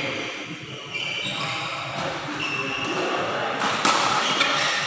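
Badminton rally on an indoor court: shoes squeaking on the court mat and rackets striking the shuttlecock, with a sharper hit a little under four seconds in.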